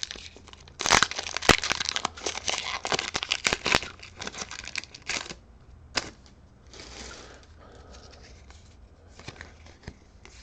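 Foil booster pack wrapper crinkling and tearing open, a dense run of sharp crackles for about four seconds. A single sharp tap follows, then softer rustling.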